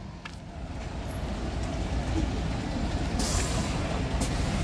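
A route bus's engine running with a low rumble that grows louder, and a burst of compressed-air hiss from the bus's air system lasting about a second, about three seconds in.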